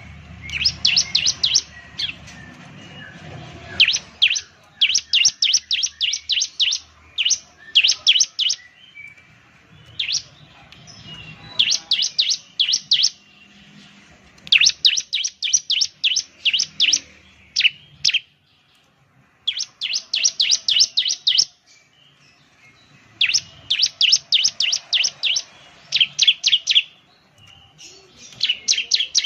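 Bar-winged prinia (ciblek) singing vigorously: repeated bursts of rapid, sharp, high chirps, about six to eight notes a second, each burst lasting a second or two with short pauses between.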